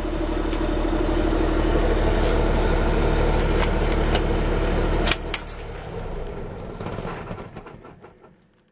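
Cummins diesel engine of a 2009 Peterbilt 367 crane truck running steadily with a deep, even hum. About five seconds in it cuts off sharply with a few clicks, then dies away to near silence.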